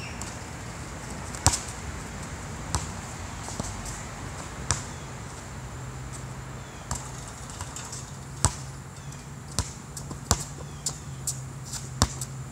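Basketball bouncing on an outdoor asphalt court and hitting the hoop: a series of sharp thuds at irregular intervals, the loudest about a second and a half in.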